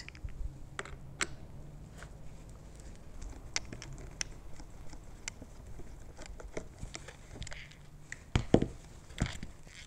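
Small scattered clicks and scrapes of a Phillips screwdriver unscrewing the screws from a shoe's heel trap door, with a few louder knocks near the end as the shoe is handled on the table.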